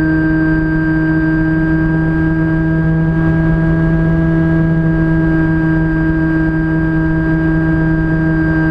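Electric motor and propeller of a Phantom FX-61 flying wing under steady power, a constant loud hum with many overtones over a rough low rumble, picked up by the camera riding on the airframe.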